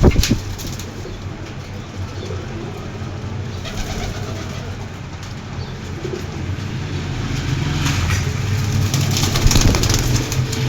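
Pigeons cooing, with a sharp knock right at the start.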